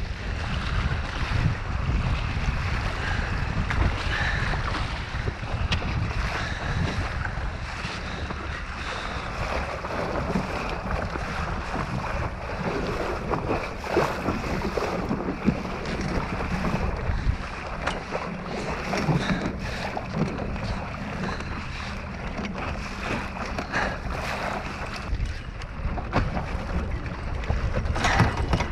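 Wind buffeting the microphone and water rushing and slapping along the hull of a small sailing dinghy under way in strong wind, with scattered small knocks.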